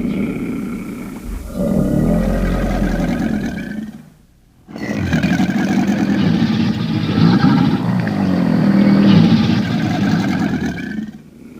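Dragon roar sound effect made from layered animal roars, such as big cat, bear and alligator recordings: two long, deep, rough roars with a brief break about four seconds in, the second much longer than the first.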